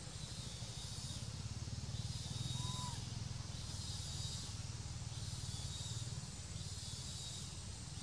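Insect chorus in dry forest: a steady high hiss that swells and fades every second or two, over a low rumble, with one brief faint squeak about two and a half seconds in.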